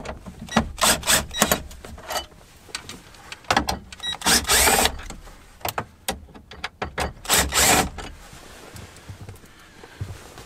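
Cordless drill-driver running in short bursts as it backs screws out of the dash trim around the radio. A few quick pulses come first, then longer runs about four and seven seconds in.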